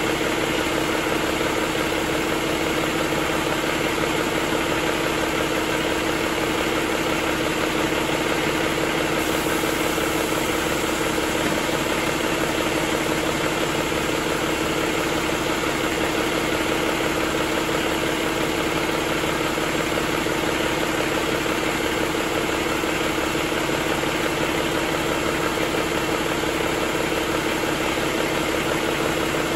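Cummins ISX15 15-litre inline-six diesel engine running steadily at idle on a test stand.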